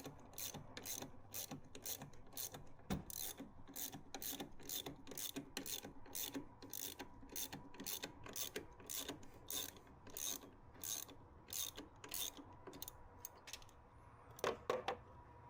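Hand ratchet wrench clicking steadily, about three clicks a second, as it backs out the bolts joining the engine mount to the engine bracket. The clicking stops a little before the end, with two last clicks after a short pause.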